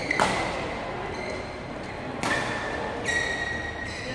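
Badminton rally: two sharp smacks of racket on shuttlecock about two seconds apart, each followed by high squeaks of shoes on the court floor.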